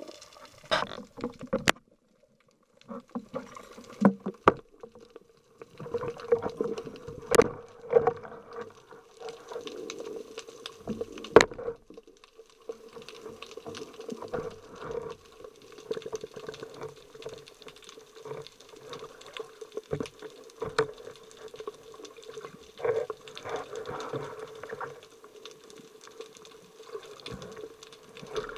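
Muffled underwater water movement picked up by a camera in a waterproof housing, with a steady low hum and a few sharp clicks and knocks in the first half.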